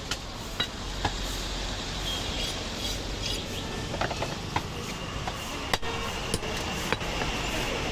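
Steady street-market background din with traffic, broken by a handful of sharp knocks as a butcher's knife cuts goat meat against a wooden tree-stump chopping block.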